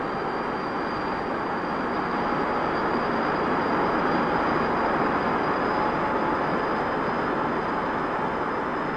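Avro Canada VZ-9 Avrocar's turbojet-driven central fan running as the craft hovers low in ground effect: a steady rushing roar with a high, thin whine over it. A second, lower whine comes up in the second half.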